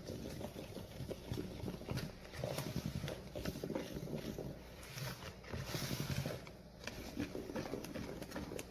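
Hand utensil beating banana cake batter in a bowl: a fast, irregular run of taps against the bowl with wet slapping of the thick batter.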